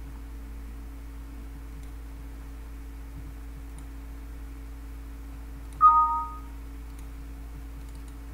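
Steady low electrical hum with a few faint clicks. About six seconds in comes one short two-tone computer beep, its higher tone the stronger.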